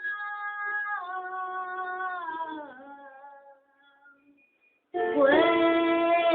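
A teenage boy singing a slow Spanish ballad in long held notes: a held note that slides down into a falling phrase and fades out about three seconds in, a short pause, then a louder new held note near the end.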